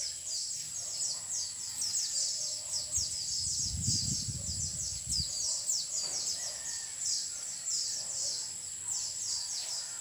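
Many small birds chirping together in a dense, continuous chorus of rapid, short, falling chirps, over a steady high-pitched hum. A brief low rumble comes in about four seconds in.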